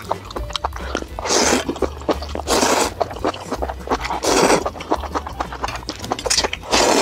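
Spicy ramen noodles being slurped in four long, loud slurps, with wet chewing clicks between them.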